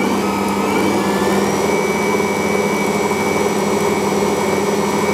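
Ankarsrum Assistent stand mixer running empty, its stainless steel bowl turning under the dough roller and scraper. It makes a steady motor hum with a high whine that rises slightly in pitch in the first second or so, then holds steady.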